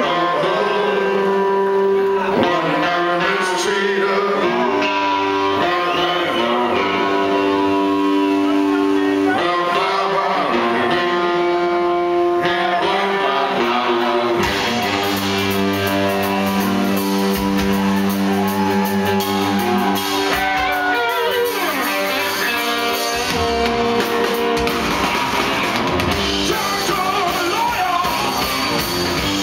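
Live rock band playing: distorted electric guitars, bass and drums, with a male lead vocalist singing over them.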